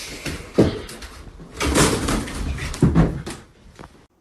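A run of knocks and bangs with scuffling in between, about four sharp ones, cutting off abruptly near the end.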